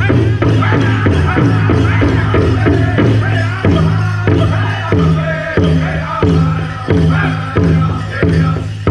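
Powwow drum group singing a chicken dance song, several voices together over a big hand drum. The drumbeat is fast at first, then a little over three seconds in drops to a slower beat of about one and a half strokes a second.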